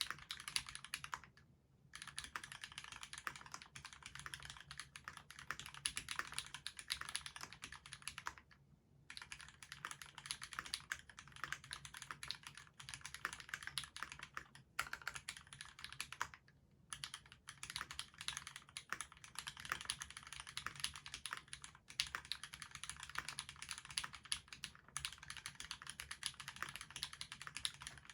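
Continuous fast typing on a custom mechanical keyboard with lubed Cherry retooled Black linear switches, a stainless steel plate and GMK keycaps, with a few brief pauses.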